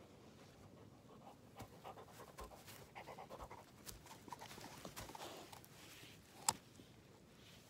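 English setter chewing and crunching on a raw carrot right at the microphone, with irregular crunches and the dog's breathing. A single sharp click near the end is the loudest sound.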